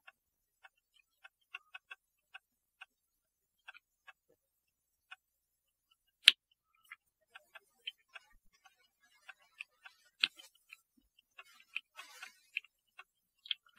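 Faint, irregular small metal clicks from a clock mainspring winder and the mainspring being handled at the winder's arbor, with a sharper click about six seconds in and another around ten seconds.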